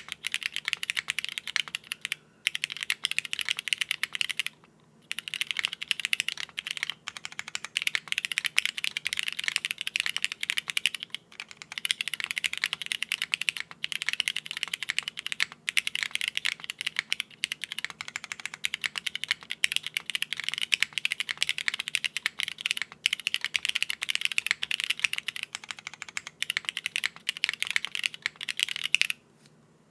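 Fast, continuous typing on a mechanical keyboard with Cherry MX Red Hyperglide linear switches, built plateless and with no foam: a dense stream of key clacks. It has a few brief pauses and stops just before the end.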